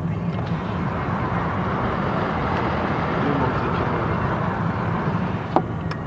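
Steady road and engine rumble inside a moving vehicle, swelling slightly partway through, with one sharp click near the end.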